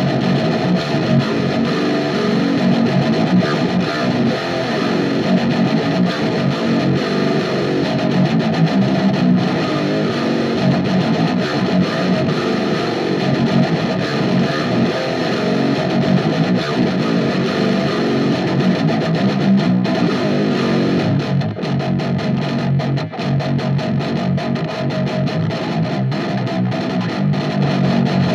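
Extended-range electric guitar played with high-gain distortion, chugging low rhythmic riffs.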